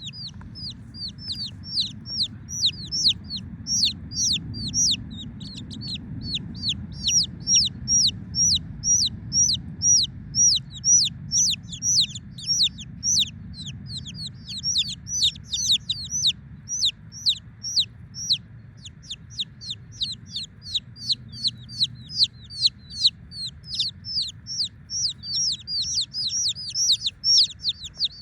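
Wyandotte baby chicks peeping continuously: a steady stream of short, high chirps that drop in pitch, several a second, over a low hum.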